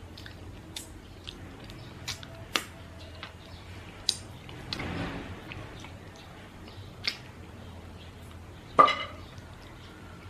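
Eating and tableware handling: scattered sharp clicks and taps, with a short soft rustle around the middle and a louder clack near the end.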